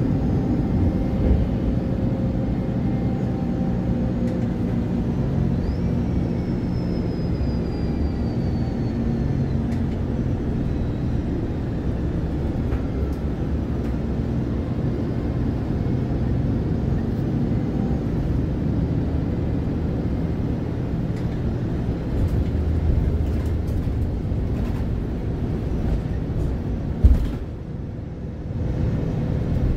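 MAN Lion's City Ü city bus engine running with a steady rumble, heard first from inside the passenger cabin and then from the roadside as the bus moves off, with a faint falling whine a few seconds in. Near the end comes one short sharp noise.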